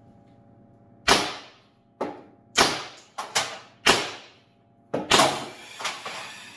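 A CO2-powered First Strike FSC carbine conversion firing .68-calibre HP68 rounds: a string of sharp shots, four loud ones about a second apart with weaker pops between, and a weaker last one near the end. The string ends as an HP68 round jams in the breech.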